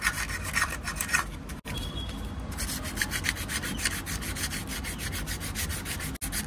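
Sandpaper rubbed by hand over the gasket face of a Bajaj Pulsar NS200 crankcase half, in quick back-and-forth strokes, with a brief lighter stretch about a second and a half in. It is scrubbing off old gasket residue stuck to the mating surface.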